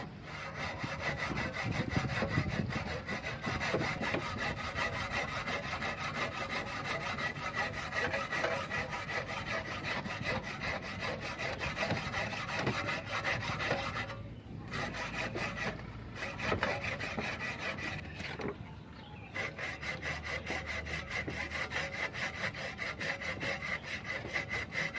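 Saw cutting into a red brick with rapid back-and-forth strokes, a gritty rasping, pausing briefly twice.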